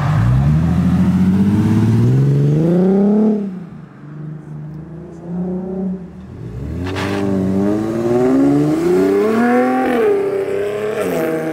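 Lowered Nissan 370Z's V6 accelerating away, its pitch climbing steadily for about three seconds before fading. About seven seconds in, a second car, a white Infiniti Q50 sedan, pulls away with its engine revving up in the same way.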